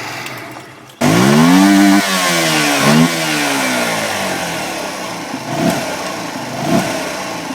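Honda Varadero 125's liquid-cooled 124 cc V-twin engine running. About a second in it jumps abruptly to a loud rev whose pitch climbs, dips, climbs again, then slowly falls away.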